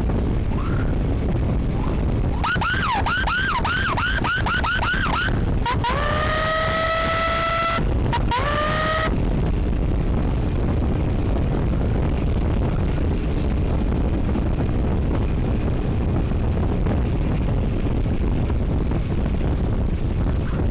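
Wind rushing over the microphone of a moving motorcycle. About two seconds in, an electronic emergency siren sounds: a rapid yelping warble at about four cycles a second for three seconds, then a tone that sweeps up and holds for about two seconds, then a shorter rising blip.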